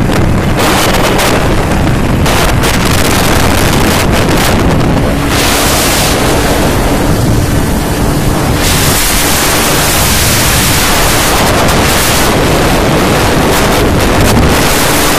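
Wind buffeting the microphone of a phone carried on a moving motorcycle, with the motorcycle engine's steady drone underneath; the hiss swells about five seconds in and again from about nine to eleven seconds.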